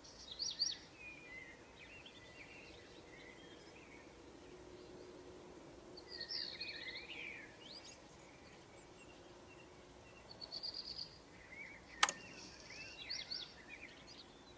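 Birds chirping in short calls and a quick trill over a faint steady background, with one sharp click about twelve seconds in.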